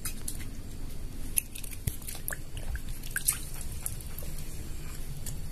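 Small water splashes and drips with scattered light clicks: a wet hand working in a plastic basin of water and handling a plastic dipper.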